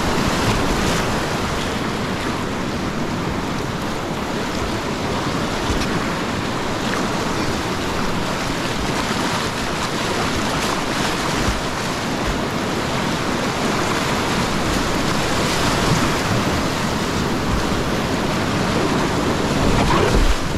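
Whitewater rapids of a steep mountain creek rushing and churning steadily around a kayak running down through them, heard close from the boat.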